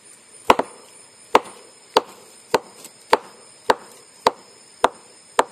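A hand beater knocking on the base of a sugar palm (aren) flower stalk in a steady rhythm, about nine sharp knocks roughly two-thirds of a second apart. This is the first beating of the stalk, which opens its pores so that it yields palm sap when it is later tapped.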